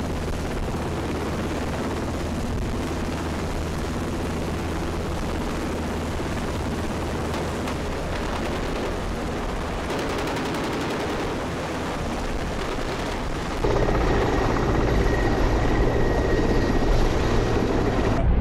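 Military helicopters' rotors and turbine engines running as they hover and fly low, a steady dense chop and rumble. About two-thirds of the way through the sound jumps to a louder, closer helicopter with a steady high turbine whine.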